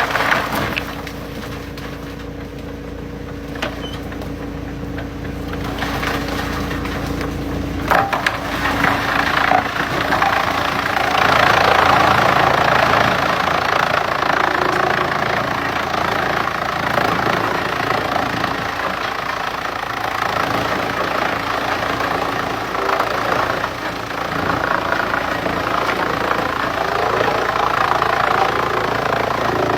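Industrial wood chipper running, its engine steady at first; about eight seconds in a sharp crack starts a loud, continuous crunching and splintering as wood is chipped, over the engine.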